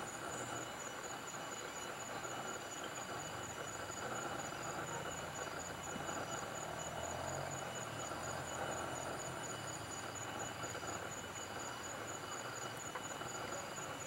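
Several insects trilling steadily at a high pitch over a soft background hiss; the highest of the trills stops about ten seconds in.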